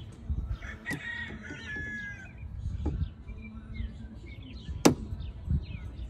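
Sharp metallic clicks of pliers working the spring-loaded plungers out of a CAT 257B skid steer's hydraulic joystick, the loudest about five seconds in. Behind them a bird gives one long, slightly falling call about a second in, and small birds chirp.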